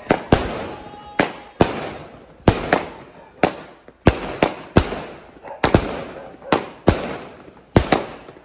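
Diamond Fireworks 'Dragon' 16-shot medium-calibre aerial cake firing: a fast string of sharp bangs from shots launching and shells bursting overhead, nearly two a second, each dying away quickly.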